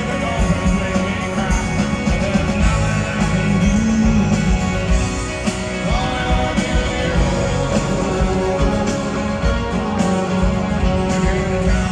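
A rock band playing live at full volume: drums, electric and acoustic guitars and keyboards, with a lead vocal singing over them.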